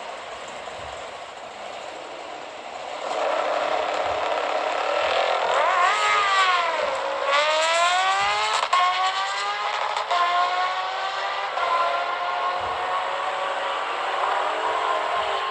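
A drag car and a sportbike on the line, then launching about three seconds in and running hard down the drag strip. Their engine pitch climbs and drops back sharply at each of several gear changes.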